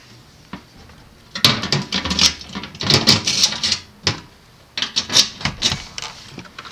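Rear seat cushions of a Ford F-150 SuperCrew being folded down over an under-seat storage box: clattering knocks and clicks from the seat hinges and latches. They come in two bursts, the first starting about a second and a half in, the second about five seconds in.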